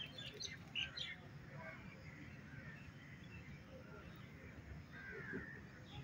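Faint birds chirping outdoors: a cluster of short chirps in the first second and a few more calls about five seconds in, over a low steady background rumble.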